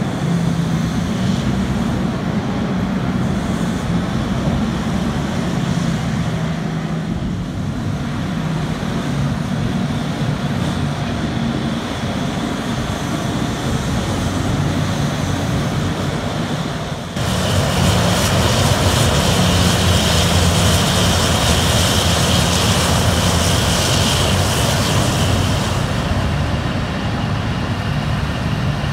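Terex RH170 front shovel excavator working: a steady, droning engine note as it digs and swings. A little past halfway the sound suddenly turns louder and harsher, with more hiss and a high whine, easing near the end.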